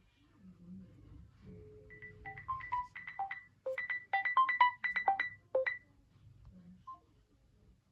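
A phone ringtone: a quick melodic phrase of short pitched notes starting about two seconds in and ending near six seconds.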